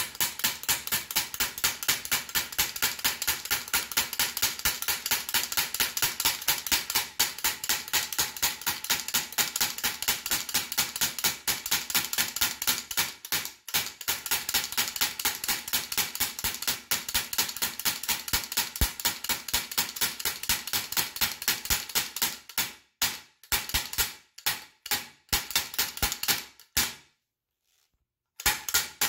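Kinetic (inertia) bullet puller's plastic hammer head striking a wooden block in rapid short strokes, about four a second, to jar the bullet out of a 300 Blackout cartridge. The strikes pause briefly about halfway through, then come more sparsely with a longer gap near the end.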